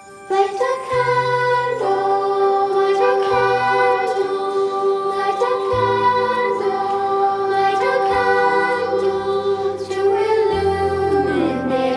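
Children's choir singing a slow song with instrumental accompaniment and sustained bass notes; the voices come in just after the start.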